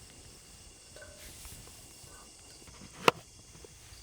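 Quiet outdoor background with a single sharp click about three seconds in.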